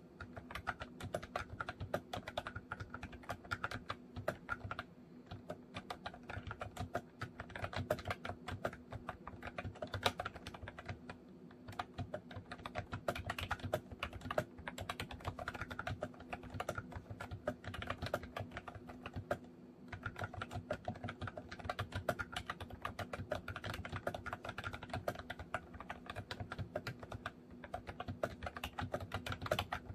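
Continuous typing on a MOFii Retro Style Candy keyboard with round retro keycaps: rapid runs of key clicks with brief pauses, over a faint steady hum.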